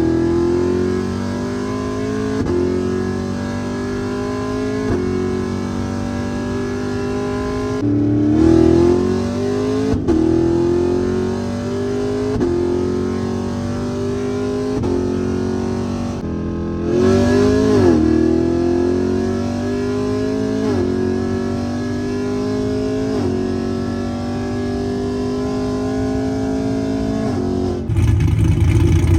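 Car engine at full throttle accelerating through the gears, its pitch climbing and dropping back at each upshift every couple of seconds. The pull starts over twice, about 8 and 17 seconds in, as a new run begins, and near the end the sound drops to a lower, steady rumble.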